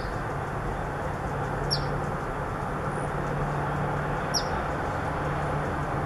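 Black phoebe giving three sharp, short chip calls, each falling quickly in pitch, a couple of seconds apart, over a steady low background rumble.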